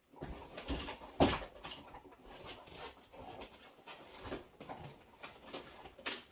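Handling noise from unboxing a guitar: irregular rustling and scraping with scattered clicks, and one sharp knock about a second in.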